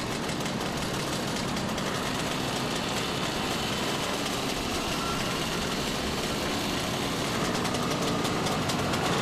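Small two-stroke engines of a Simson Schwalbe KR51/2 moped and an old motorcycle running as they ride along together, growing slightly louder toward the end.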